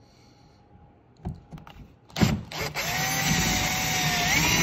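After a few light clicks, a power drill starts about halfway in and runs on with a whine that wavers in pitch. Its large twist bit is reaming out a tight hole in the underside of the bumper, widening it to take a rubber well nut.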